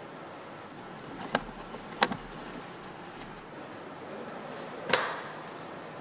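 Three sharp knocks from motorcycle parts being handled during assembly, the last and loudest near the end, over a steady factory background noise.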